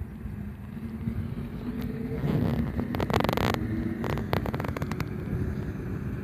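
Steady low rumble with a faint engine-like hum beneath. Louder rustling and scuffing about two seconds in, then a few sharp clicks, fit footsteps on concrete and the phone being handled.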